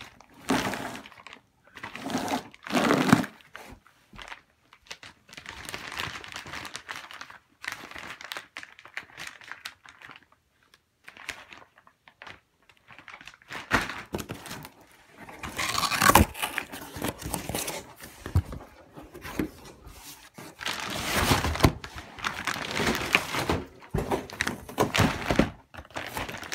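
Plastic bag wrapping crinkling and rustling in irregular bursts as polyurethane body-kit parts are pulled from their packaging and handled, with the cardboard box shifting now and then.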